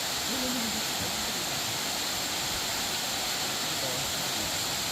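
Steady rushing of a waterfall, a continuous even hiss of falling water, with a faint voice briefly under a second in.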